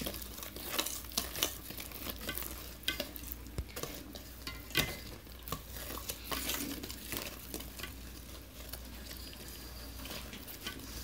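Chocolate cake batter being stirred by hand in a stainless steel mixing bowl, the utensil clicking and scraping irregularly against the metal sides.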